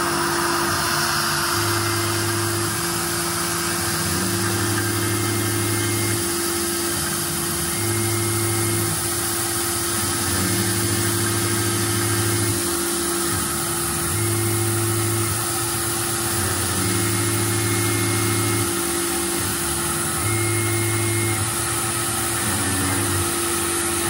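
CNC milling machine contouring an aluminum knife-blade blank with a small end mill: a steady spindle whine over the hiss of the air-mist coolant. A lower hum switches on and off every couple of seconds as the axes move the cut along.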